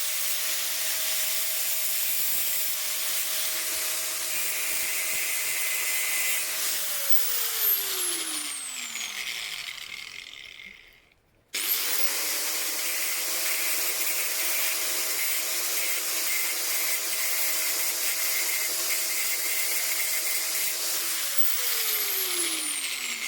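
A high-revving electric power tool cutting metal, its steady motor tone under a loud grinding hiss. It runs, is switched off and spins down with falling pitch, starts again about halfway through, and spins down once more near the end.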